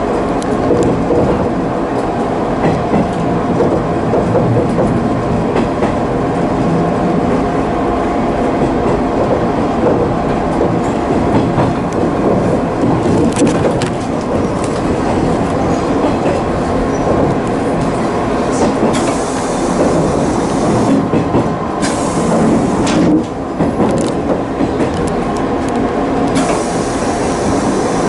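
JR 185 series electric train running at speed, heard from the driver's cab: a steady electric hum over the rumble of the wheels, with wheels clicking over rail joints. A brighter hiss comes in for a couple of seconds twice in the second half.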